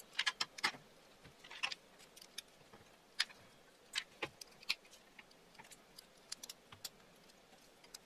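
Faint, irregular clicks and ticks of small terminal screws and the plastic body of a vintage two-prong plug being handled as the screws are fitted back in.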